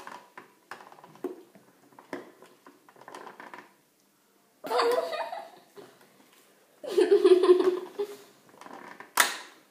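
Faint plastic clicks of a Pie Face game's handles being cranked, with a child laughing about halfway through and again a couple of seconds later, and one sharp short sound near the end.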